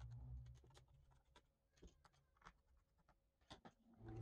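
Near silence with faint, scattered light ticks from a small screwdriver working the battery screws of a Dell Precision 7740 laptop.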